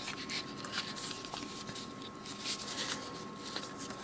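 Hands handling the earbuds' packaging: light rustling with scattered soft clicks and taps, over a faint steady electrical hum.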